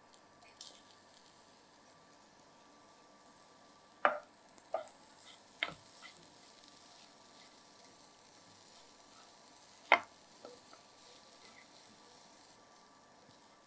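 Spatula stirring diced beetroot into coconut masala in a non-stick frying pan, with a faint sizzle. A few sharp knocks of the spatula against the pan, the loudest about ten seconds in.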